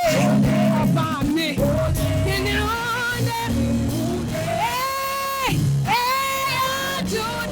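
Live gospel worship music: a band playing under a singer's voice, which glides between notes and holds one long note about five seconds in.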